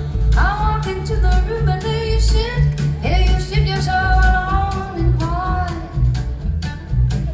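Live country band music: a woman singing long, sliding notes over acoustic guitar, with electric guitar and a heavy low end.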